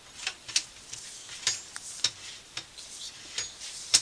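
Sewer inspection camera and its push cable being fed down a plastic ABS drain line: about seven irregular sharp clicks and short scrapes, with no steady rhythm.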